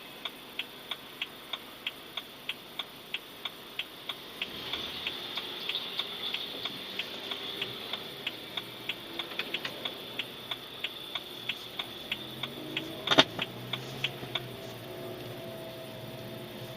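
A BMW's horn making an abnormal regular ticking, about three clicks a second, with one much louder click about 13 seconds in. The ticking stops near the end, leaving a low steady hum.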